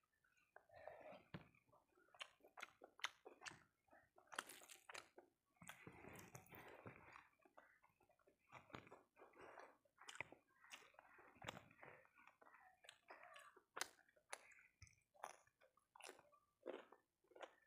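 A person chewing a hand-fed mouthful of rice, omelette and mashed vegetables, with wet mouth clicks and smacks at irregular intervals.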